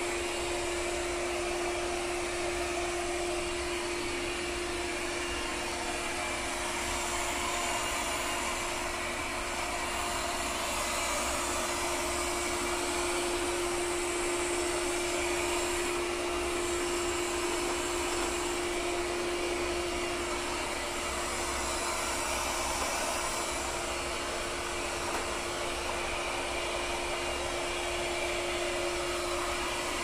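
Lydsto W2 robot vacuum running on a tile floor: a steady suction whir with a constant hum underneath.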